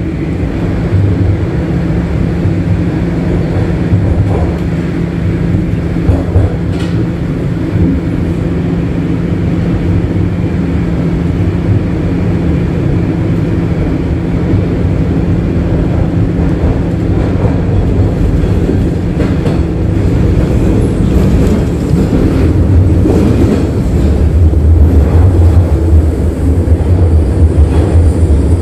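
Toronto Rocket subway train running between stations, heard from inside the car: a steady low rumble and hum of the motors and wheels on the track. The deep rumble grows louder near the end.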